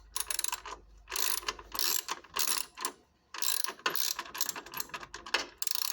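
Socket ratchet wrench being swung back and forth to back out a 10 mm bolt, a run of quick rasping clicks in short strokes with brief pauses between them.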